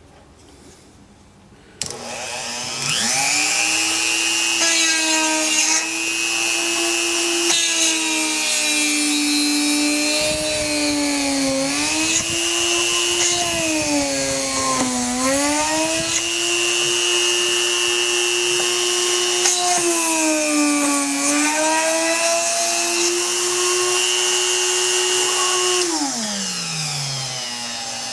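Small rotary tool mounted in a homemade miniature drill press, starting about two seconds in and running with a steady high whine. Its pitch sags three times as the bit is fed into wood under load, and it spins down near the end.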